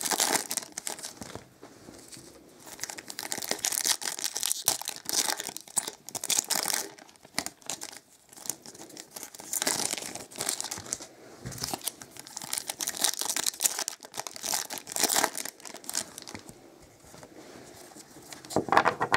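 Foil trading-card pack wrappers being torn open and crinkled by hand, in irregular bursts of crackling separated by short pauses.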